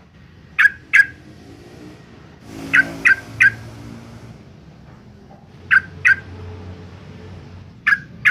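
Yellow-vented bulbul (trucukan) calling in loud, short, sharp notes, in quick groups of two and three.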